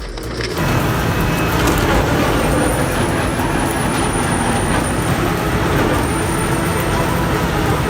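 Heavy industrial machine running under load: a dense, steady engine rumble mixed with grinding noise, with a thin high whine over part of it, coming in abruptly about half a second in.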